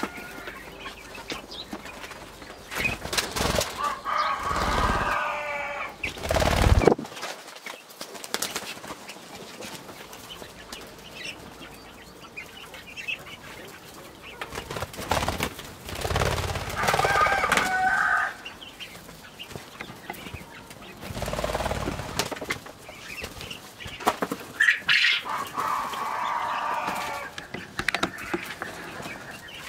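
Farmyard chickens: a rooster crows three times, about ten seconds apart, between hens clucking, with a few loud knocks or bumps in between.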